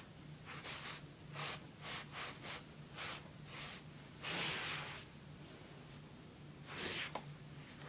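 A puppy sniffing and snorting close to the microphone: a string of short breathy puffs, with a longer puff about four seconds in and another near the end.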